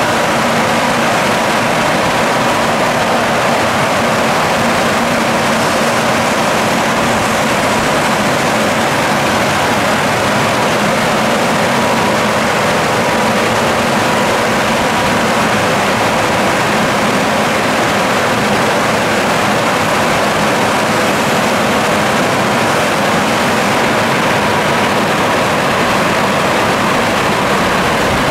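Rollover car wash's drying blowers running steadily: a loud, even rush of air with a faint steady tone in it.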